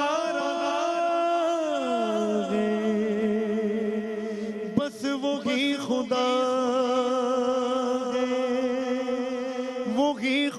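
A man singing an Urdu naat unaccompanied into a microphone, in long held notes. The first note slides down in pitch about two seconds in; after a short break around five seconds in he holds another long, steady note.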